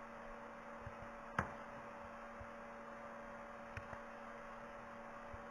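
Steady low electrical hum with faint hiss, broken by one sharp click about a second and a half in and a couple of fainter clicks later.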